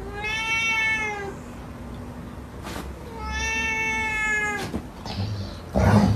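Orange tabby cat giving two long, drawn-out meows, each rising slightly and then falling away. A short, loud, noisy burst follows near the end.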